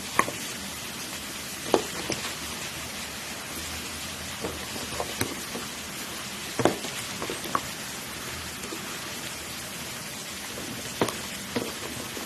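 Pan of broth boiling with a steady bubbling hiss, with scattered short knocks and clinks as chayote wedges are laid into the pan by hand.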